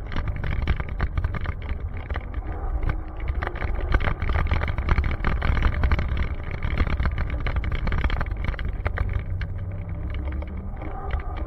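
Wind buffeting and a deep road rumble on an action camera's microphone as it travels along pavement, with many small rattles and knocks mixed in.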